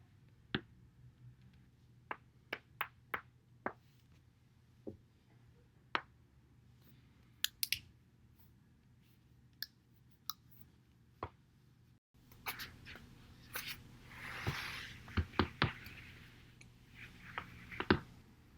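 Spinal joints cracking as a back is rolled over a foam roller: a string of sharp pops and clicks, some single and some in quick clusters, the loudest near the end. About two thirds of the way through, a soft rushing noise rises and falls among the pops.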